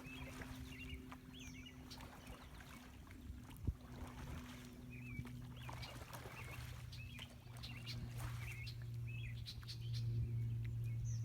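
Birds chirping, short calls repeated again and again, over a low steady hum that grows louder near the end. A single sharp knock about three and a half seconds in.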